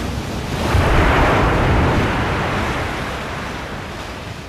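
Animation sound effect of a huge mass of sea water surging up and splashing: a wide noise with a low rumble underneath, swelling about a second in, then slowly fading.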